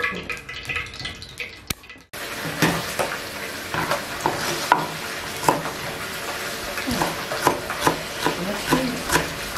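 A kitchen knife chopping green onions on a bamboo cutting board. The blade strikes the board about twice a second, starting about two seconds in.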